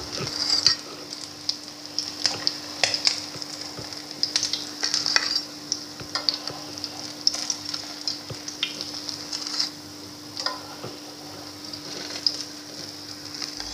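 Hot oil sizzling and crackling in a frying pan as breaded potato-and-egg kababs shallow-fry, with scattered sharp clicks of metal tongs lifting them out onto a plate. A steady low hum runs underneath.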